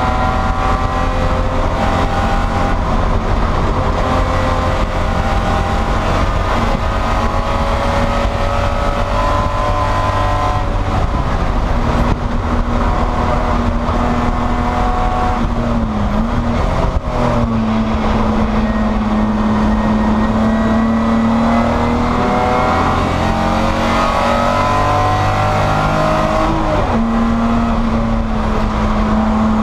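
Spec E30 BMW race car's inline-six engine heard from inside the cabin, running hard with its pitch climbing steadily through the revs. The engine note breaks and builds again twice, about 16 and 27 seconds in.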